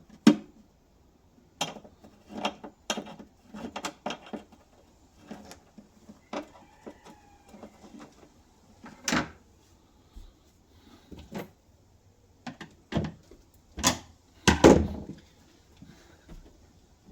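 Scattered knocks, clicks and clunks of metal panels and tools as a Land Rover Defender's rear seat box is worked into place, with heavier thuds about 9 seconds in and again around 14 to 15 seconds.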